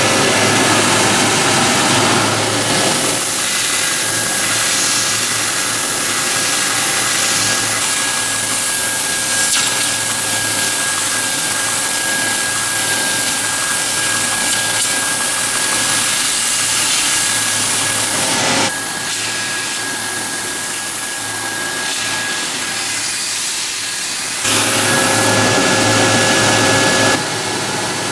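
ART 143 long-belt flat-surface sanding machine running, its abrasive belt grinding a welded steel tube frame pressed down by a hand-lever pad, with a steady high whine over the grinding noise. The louder grinding drops away about two-thirds through, returns a few seconds later, and drops again near the end.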